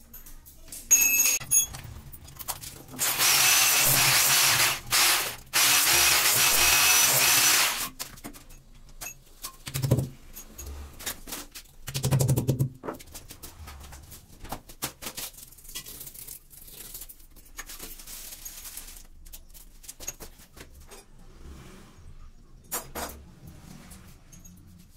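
Power drill running in two bursts of a couple of seconds each, followed by two dull thumps and scattered light clicks and knocks of fitting work.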